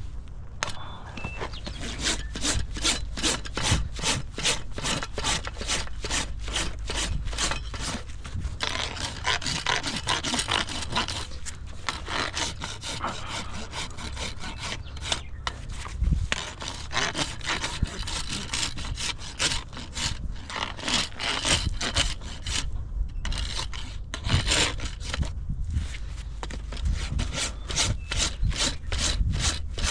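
Farrier's hoof rasp filing a horse's hoof in quick, even back-and-forth strokes, about two or three a second, with a few short pauses. This is the finishing work on a freshly shod hoof.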